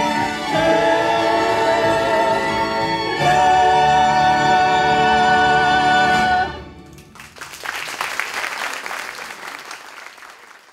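A cast and choir sing the final held notes of a musical-theatre song with orchestral backing. The music stops about six and a half seconds in, and audience applause follows and fades out near the end.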